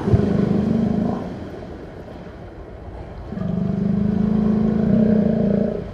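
A cow mooing twice: a short low moo at the start and a longer, steady moo from about three seconds in.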